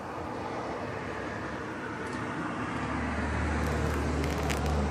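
A motor vehicle's engine hum comes in about three seconds in and grows louder over a steady street background, with a few sharp clicks near the end.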